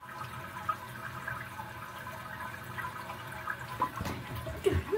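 Steady rushing ambience from an animated video's soundtrack, heard through a screen's speaker, with a few louder knocks near the end.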